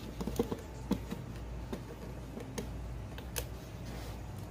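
Light clicks and taps of hands handling a hard plastic RC car body: a quick cluster in the first second, then single clicks spaced out over the rest, over a low steady hum.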